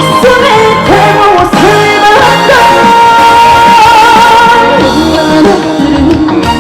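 Loud trot music with a full band backing, its lead melody holding one long wavering note near the middle.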